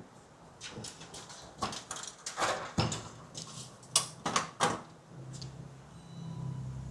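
Irregular sharp clicks and knocks of computer hardware being handled and fitted together, the loudest about four seconds in. A low steady hum comes in near the end.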